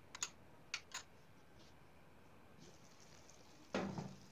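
A spoon clinking against a small ceramic bowl, a few sharp clicks in the first second, as a tomato-and-spice sauce is stirred. A short louder knock comes near the end.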